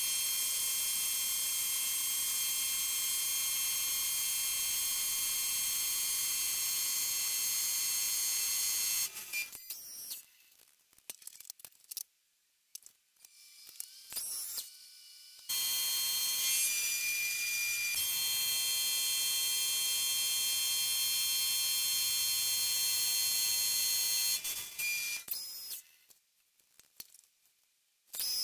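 Jet JMD-18 mill-drill running, a steady high whine of its spindle and motor. The whine cuts off suddenly about nine seconds in, comes back about halfway through, and stops again near the end, with faint handling sounds in the gaps.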